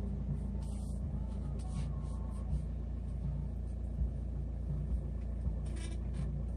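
Motorcycle engine idling steadily with a low, pulsing rumble.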